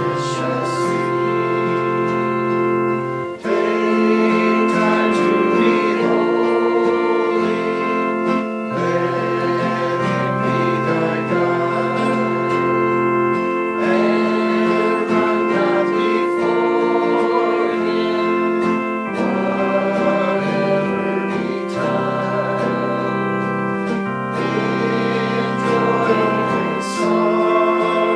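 A hymn sung slowly by voices over organ accompaniment, the held chords changing every couple of seconds.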